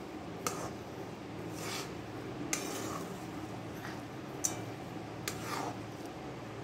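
A spatula stirring sugar into cooked rice in a stainless steel pan: soft scraping, with about four sharp clinks of the spatula against the pan, over a steady low hum.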